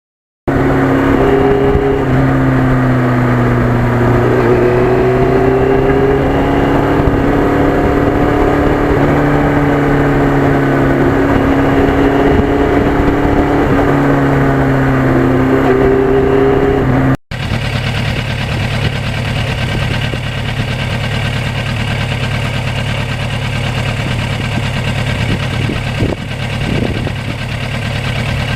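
1991 Yamaha FZR1000's inline-four engine running while riding, its pitch rising and falling gently with the throttle. After a brief break about two-thirds through, the engine sits lower under a steady rushing noise.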